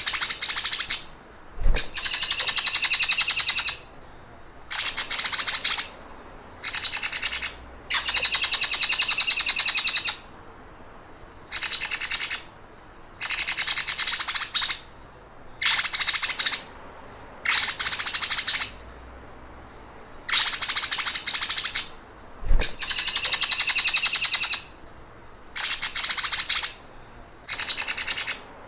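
A songbird's rapid, buzzing 'sewing machine' (mesin jahit) trill, repeated in about a dozen high-pitched bursts of one to two seconds each with short pauses between. This is the kind of call used as a master tutor recording for cagebirds to copy.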